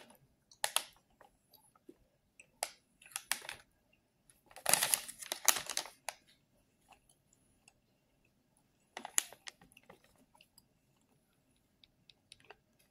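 Plastic candy pouch crinkling as it is handled, in short scattered bursts with a longer, louder stretch about five seconds in.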